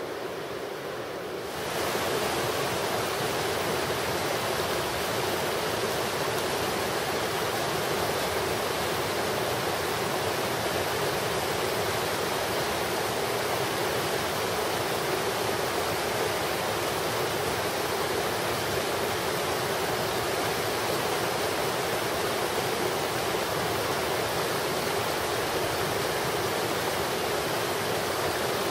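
Steady rush of a rocky creek's flowing water, stepping up louder about two seconds in.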